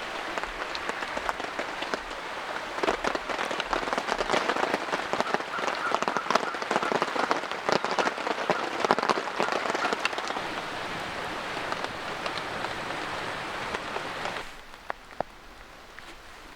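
Steady rain with many individual drops pattering. It drops suddenly to a much quieter patter near the end.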